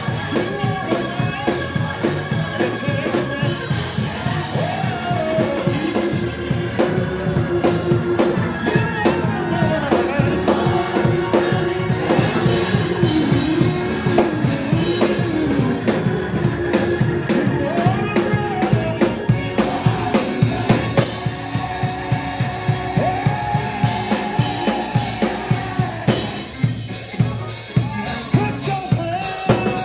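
Gospel choir singing with organ and a drum kit keeping a steady beat.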